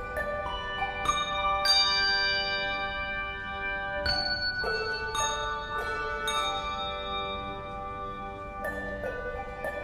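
Tuned bells playing a slow melody: each note is struck and rings on, overlapping the next.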